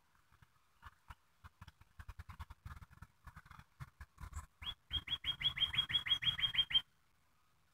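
A bird calling: scattered short chirps and clicks, then a fast run of about fifteen quick rising notes, around seven a second, that stops abruptly near the end.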